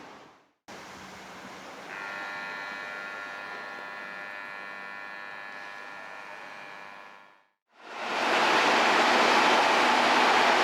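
A steady warning sound of several tones held together, lasting about five seconds. Then, much louder, an EH500-hauled freight train runs past with a dense, steady rail roar.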